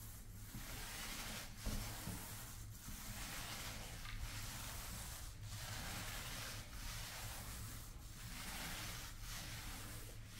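Paint roller on an extension pole rolling the first coat of floor finish onto a hardwood floor: a soft swishing hiss that swells and fades with each back-and-forth stroke, a little over a second per stroke. There is a short knock about a second and a half in.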